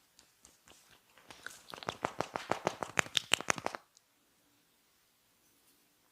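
Hair cracking during a head massage: tufts of hair pulled and rubbed between fingers to give a rapid run of sharp crackles, about eight a second. It starts about a second in, lasts about two and a half seconds and stops abruptly.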